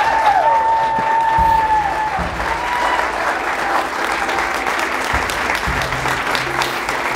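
Audience clapping steadily, with a long held whoop in the first two seconds and a shorter cheer about three seconds in.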